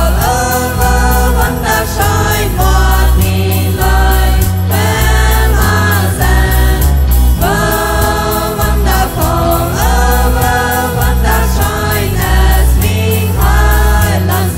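Mixed group of singers singing a gospel song in harmony in Plautdietsch (Mennonite Low German), backed by keyboard, accordion, electric bass, and electric and acoustic guitars with a steady beat.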